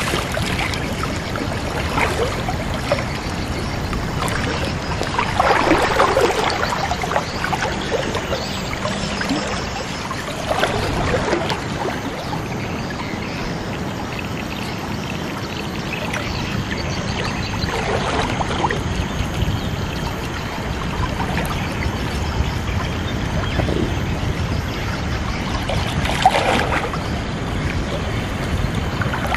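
River water rushing steadily in shallow water, with several brief splashes as hands and a cast net are worked in the water. The largest splash comes about six seconds in.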